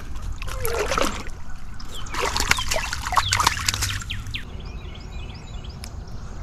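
Splashing and sloshing in shallow water as a stringer of crappie is dropped in at the bank, followed by rustling steps over gravel and dry grass. Birds chirp in short repeated notes near the end.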